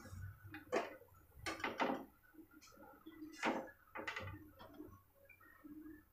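Wire skimmer clinking and scraping against the rim of an aluminium kadai, about five sharp knocks spread over several seconds, as fried gulab jamuns are lifted from the oil and drained.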